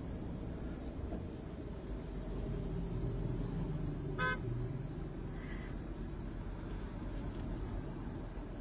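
Steady low road and engine rumble heard from inside a moving car's cabin, with one short car-horn beep about four seconds in.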